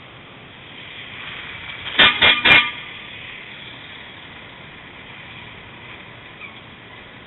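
Lorry horn giving three quick toots about two seconds in. A heavy lorry passing close by makes a rumble that swells and fades around the toots.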